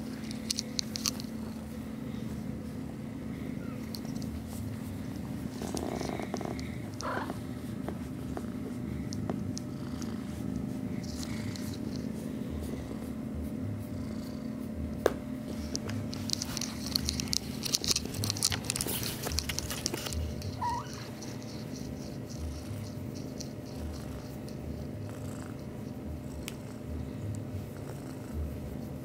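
Kitten purring steadily close to the microphone while being stroked. Scratchy rustling of fur and fabric comes and goes, heaviest a little past halfway, with one sharp click near the middle.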